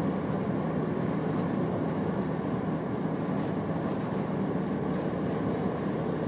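Steady road and tyre noise of a car driving at speed, heard from inside the cabin, as an even low rumble with no change in pitch or level.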